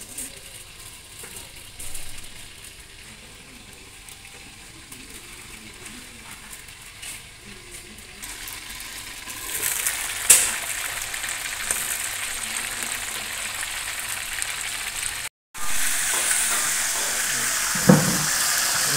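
Hot oil sizzling in a wok as flour-battered fish pieces deep-fry. It is faint for the first half, with only a few small clicks, then grows louder from about eight seconds in. There is a sharp metal clink about ten seconds in as the wok lid is lifted, and a metal clank near the end as more pieces go into the oil.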